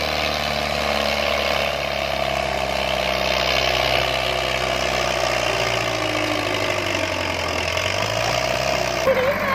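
5911 tractor's diesel engine running steadily under load, hauling a loaded sand trolley through loose sand.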